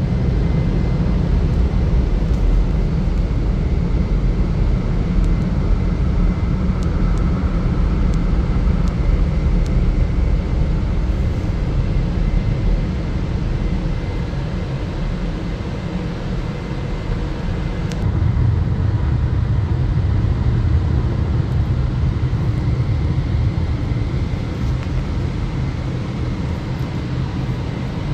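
Air-dryer blowers of a touchless automatic car wash running steadily during the final drying stage, heard from inside the car's cabin; the blast gets louder about two-thirds of the way through as the blower passes closer.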